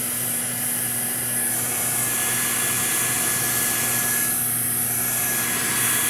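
Handheld hair dryer running steadily: a constant rush of air with a steady motor whine.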